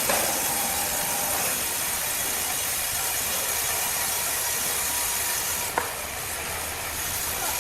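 Steady, hissing machine noise, with one sharp click about three-quarters of the way through.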